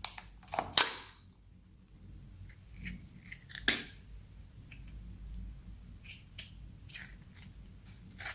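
Plastic lid pried off a small plastic slime cup with sharp cracks and pops, loudest about a second in, another pop a few seconds later. After that come softer small clicks and squelches as clear slime is pulled from the cup.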